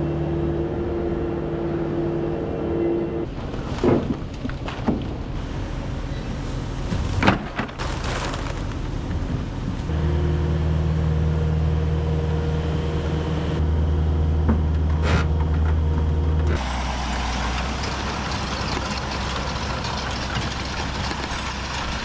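Farm diesel engines running: a skid steer's engine hums steadily while it moves a pallet of seed bags, with a few clanks about midway, and its engine sounds louder and deeper from about ten seconds in. About two-thirds of the way through, this gives way to a broad, even rushing noise from a tractor pulling a planter across stubble.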